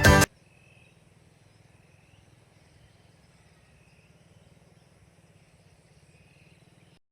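Acoustic guitar music that cuts off abruptly, followed by near silence: a faint low hum with a few faint, scattered chirps.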